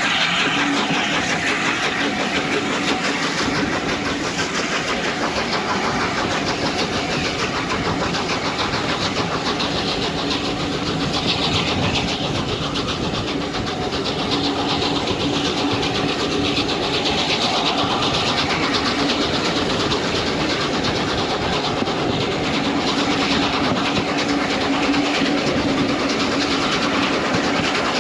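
A train on the move: steady running noise with a low hum that fades and returns.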